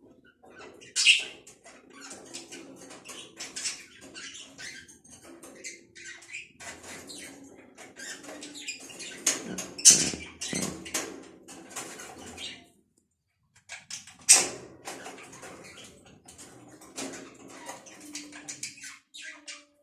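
Budgerigars chattering with scratchy clicks, high chirps and wing flutters, with a few louder sharp bursts about a second in, about halfway through and near two-thirds through.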